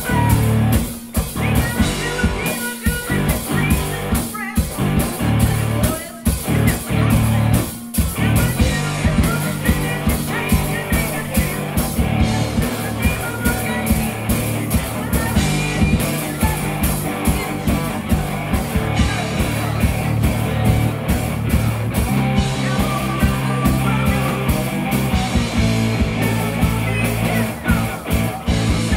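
Live rock band playing electric guitars, bass and drums, with a singer at the microphone. For the first eight seconds or so the band hits and stops, leaving short gaps, then it plays straight through.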